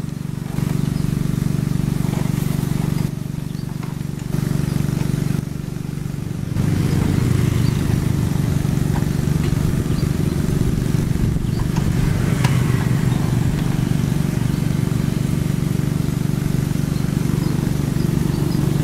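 Two-wheel hand tractor's single-cylinder diesel engine running steadily, dipping in level three times in the first third, then running louder and rougher from about a third of the way in.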